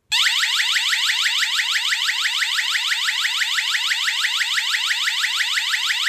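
1Byone QH-0251 wireless driveway alarm receiver sounding its alarm-mode siren: a loud electronic whoop of rapid rising sweeps, about seven a second, starting suddenly and going on without a break.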